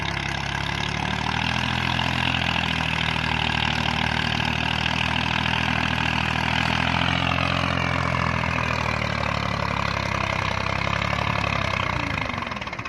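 Massey Ferguson 240's three-cylinder Perkins diesel engine running hard while pulling a heavily loaded trolley over soft ground. The note is steady, sags slightly in pitch about halfway, and drops away near the end.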